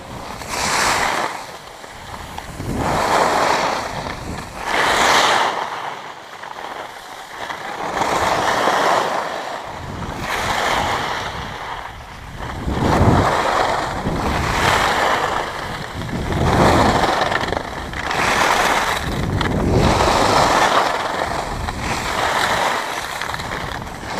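Skis carving over packed snow: a swell of scraping hiss with each turn, every two seconds or so.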